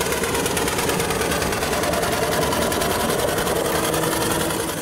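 Miniature steam traction engine running, its motion giving a rapid, even mechanical clatter.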